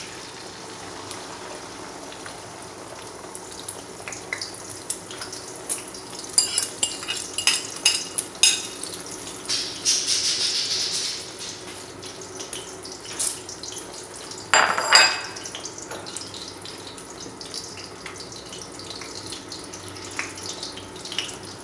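Beaten eggs frying in hot oil in a wok, a steady sizzle, with scattered clinks and knocks of kitchenware. The loudest clatter comes about fifteen seconds in.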